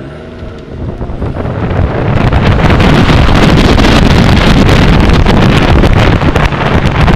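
Abarth 500 race car's turbocharged four-cylinder engine pulling with rising revs, quickly buried under heavy wind buffeting on a microphone mounted on the outside of the car, which builds over the first two seconds as the car gathers speed and then stays loud.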